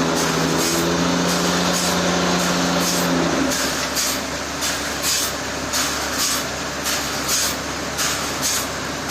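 Heavy sawmill machinery running. A steady drone carries a held tone that stops about three seconds in, with a hiss pulsing about twice a second.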